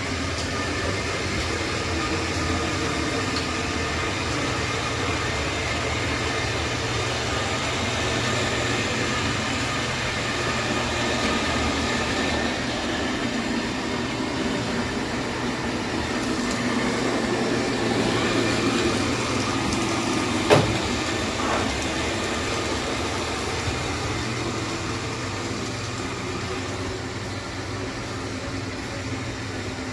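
Xiaomi Mi Robot Vacuum-Mop Essential running, a steady whir of its suction fan and brushes. There is a single sharp knock about two-thirds of the way through.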